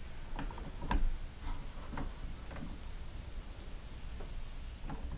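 Faint metallic clicks and ticks from a barrel nut wrench on a breaker bar as an AR-15 barrel nut is loosened and tightened. The clicks come singly, about half a second apart, with a last one near the end.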